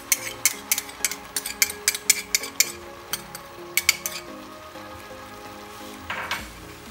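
Stir-fry vegetables in a hot stainless steel pan sizzling and crackling with many sharp pops as water is poured in from a bowl. The popping thins out after about three to four seconds, and there is a brief hiss near the end.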